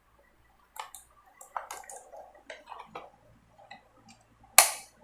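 Scattered light plastic clicks and taps from handling a wireless keyboard and mouse, with one sharper click about four and a half seconds in.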